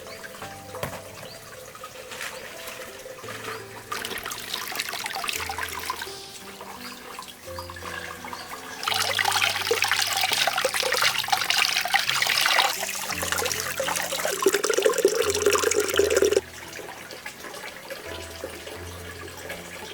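Water running, as from a tap into a sink: a lighter flow a few seconds in, then a loud, steady rush for about seven seconds that stops suddenly, over soft background music.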